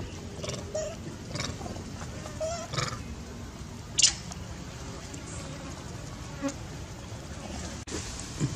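Insect-like buzzing over a steady low hum, broken by a few brief sharp sounds, the loudest about four seconds in.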